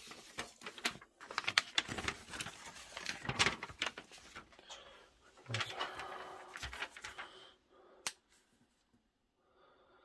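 A folded paper instruction sheet being unfolded and smoothed flat by hand: crackling, rustling paper in two stretches, stopping about seven and a half seconds in, with one sharp click just after.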